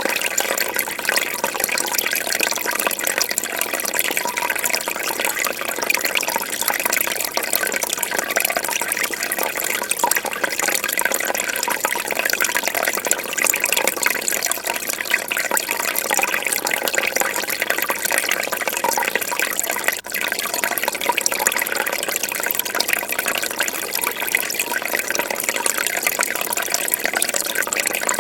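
Fish tank water bubbling and trickling steadily, with a momentary drop in level about twenty seconds in.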